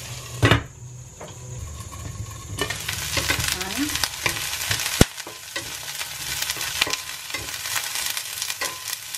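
Carrots and broccoli sizzling in a stainless steel skillet. A glass lid knocks onto the pan about half a second in and muffles the sizzle for about two seconds; once it is off, a wooden spatula stirs and scrapes through the vegetables, with one sharp knock against the pan about halfway through.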